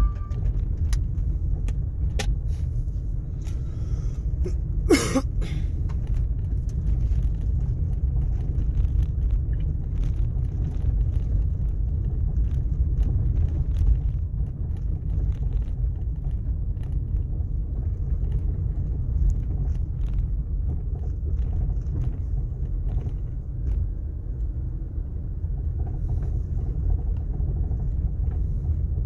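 A vehicle driving on a corrugated gravel road: a steady low rumble of tyres on gravel, with scattered small ticks and one short sharp sound about five seconds in.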